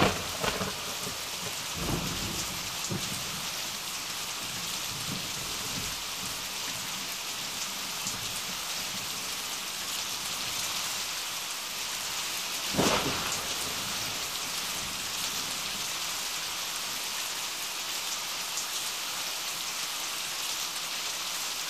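Steady heavy rain with thunder: a crack of thunder right at the start and another a little past halfway, over a continuous rain hiss.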